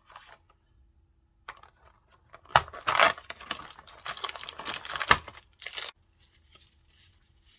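A cardboard door of a paper advent calendar being torn open, then the plastic-wrapped item inside crinkling as it is pulled out and handled. A sharp rip starts about two and a half seconds in, and dense crackling follows for about three seconds before dying down to faint rustling.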